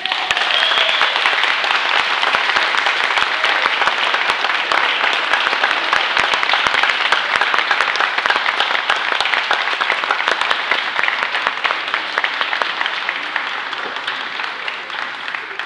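Audience clapping in a large hall: a burst of applause that starts suddenly and thins out gradually over the last few seconds.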